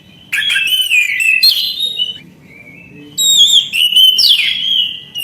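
Orange-headed thrush singing: two loud bursts of rapid, varied whistled phrases with sliding notes, the first starting about a third of a second in and the second about three seconds in.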